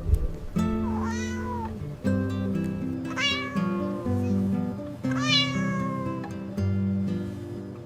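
A cat meows three times, each a drawn-out meow that bends in pitch, over gentle background music with held notes.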